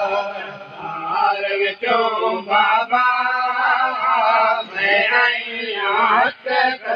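Male voices chanting a noha, a Shia mourning lament, unaccompanied, in long wavering melodic lines broken by short pauses for breath.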